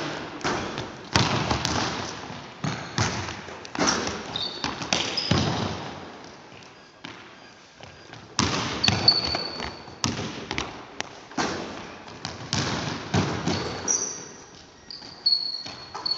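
Basketballs bouncing and thudding on a hardwood gym floor, each hit echoing in the hall, with several short high sneaker squeaks and running footsteps.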